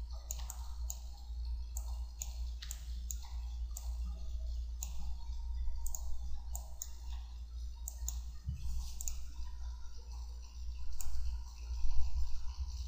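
Computer mouse and keyboard clicking irregularly, about two clicks a second, over a steady low hum.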